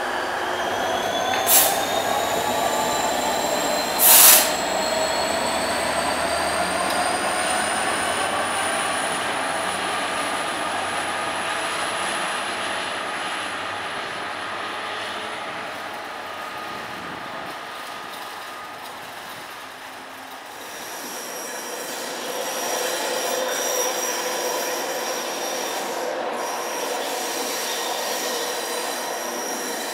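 Class 66 diesel locomotive moving slowly through the station with its wheel flanges squealing against the rails: high ringing tones that slowly rise in pitch. There is a sharp click about a second and a half in and a louder bang about four seconds in. In the latter half the squeal carries on as steadier high tones.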